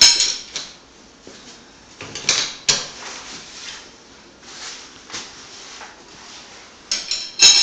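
Rustling of a nylon travel-cot carry bag and light clatter of the cot's poles and plastic parts being handled, in a few short bursts, loudest at the start and near the end.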